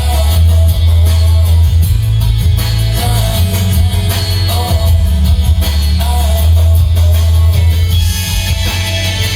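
Rock song with guitar, drums and singing played loudly through a vintage Pioneer amplifier and graphic equalizer, with heavy bass.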